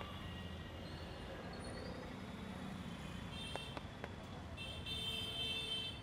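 Road traffic running past on a wet road, with a vehicle horn sounding for about a second and a half near the end. Two light clicks come a little past halfway.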